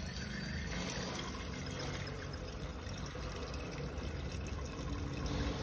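Water poured in a steady stream from a plastic jug into a pressure cooker, splashing into the chicken and masala to make the gravy.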